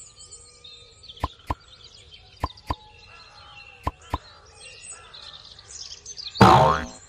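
Birds chirping in the background, broken by three pairs of sharp clicks in the first four seconds. Near the end comes a loud, short sound effect that slides down in pitch.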